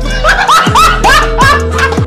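Background music with a steady beat and sliding bass notes, over which someone giggles in about five quick, high-pitched, rising-and-falling squeals.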